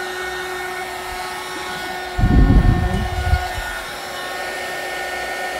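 Electric heat gun blowing steadily with a constant whine, drying fresh paint. A louder low rumble lasts about a second near the middle.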